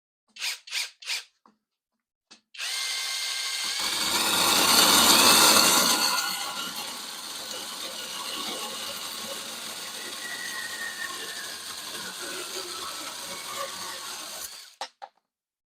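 Cordless screwdriver driving a small chainsaw attachment: three quick trigger blips, then a run of about twelve seconds, loudest a few seconds in, ending with a couple of short blips.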